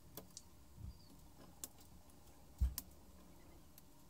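Scissors snipping off the tails of nylon zip ties: a scattering of sharp, irregular clicks. About two and a half seconds in comes a duller knock, the loudest sound.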